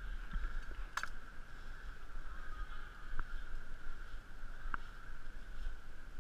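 Three sharp clicks of climbing gear on a ropes course, the loudest about a second in and the others about two and four seconds later. Under them run a steady high-pitched drone and a low rumble on the camera microphone.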